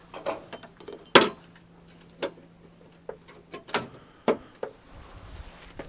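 A string of short clicks and knocks from hands handling parts and wiring, the sharpest about a second in and two more near four seconds, over a faint steady hum.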